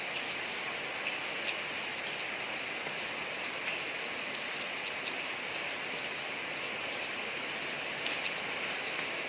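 Steady rain falling on a street: an even hiss with scattered drop ticks, a few slightly louder ones standing out.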